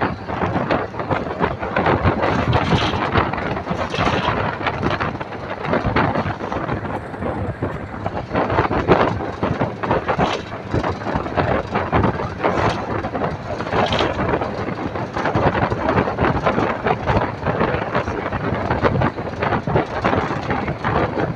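Travel noise from inside a moving vehicle: a steady rush of road and wind noise with frequent rattles and knocks throughout.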